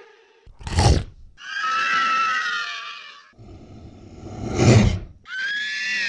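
Monster vocal sound effects: a short roar, then a long high screech, then a harsher roar that swells to its loudest near the end before another screech begins.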